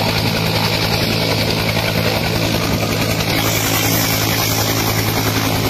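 Helicopter on the ground with its engine and rotor running steadily.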